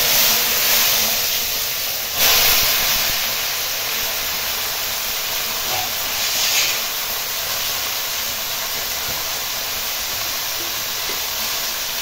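Taro leaves and stems sizzling in hot oil in a wok, a loud steady hiss of frying and steam. It swells briefly about two seconds in and again around six and a half seconds, then settles to an even sizzle.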